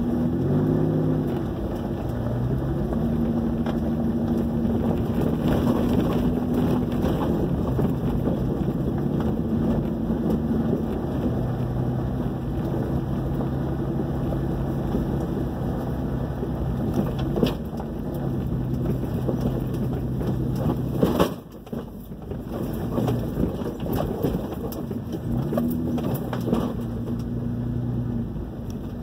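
Truck engine running, heard from inside the cabin while driving a rough dirt trail, its pitch rising and falling with the throttle, with rattles and knocks from the body over bumps. A sharp loud knock about two thirds of the way through, after which the engine sound drops off briefly.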